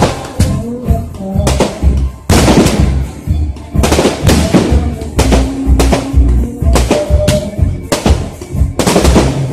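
Music with a heavy drum beat, mixed with the loud, irregular bangs and crackles of fireworks going off.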